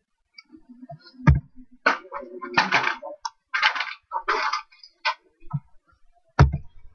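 Indistinct muttered speech that the transcript does not catch, with a sharp knock about a second in and another near the end.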